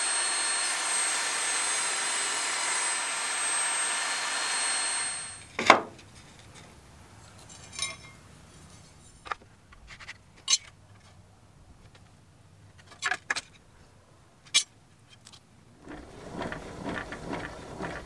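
Evolution table saw running with a steady high whine for about five seconds, then stopping abruptly. A loud knock follows, then a scattering of sharp taps and clicks from the wood and a metal speed square being handled. Near the end a rougher sawing noise starts as a board is fed into the blade.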